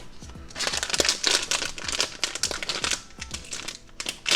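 Crinkly packaging being handled and torn open to unwrap a blind-box vinyl toy, a dense run of crackling that thins out about three seconds in and picks up again near the end.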